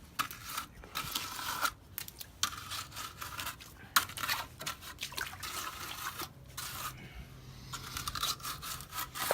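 Wet, partly set concrete being smoothed and shaped by hand, a run of irregular scraping and rubbing strokes.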